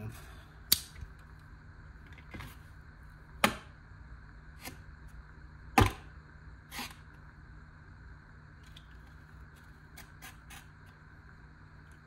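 Folding pocket knife blade being opened and snapped shut by hand, sharp metallic clicks a second or two apart with the loudest about halfway through, then a few fainter small clicks. The blade is being worked in because its lock does not engage well yet.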